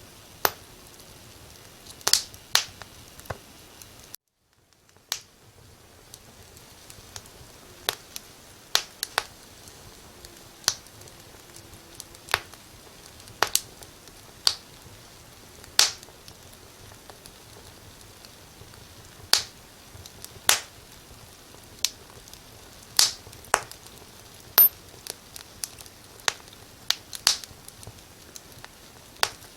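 Firewood burning in a fireplace, crackling: irregular sharp pops and snaps over a steady soft hiss. The sound cuts out briefly about four seconds in and fades back up.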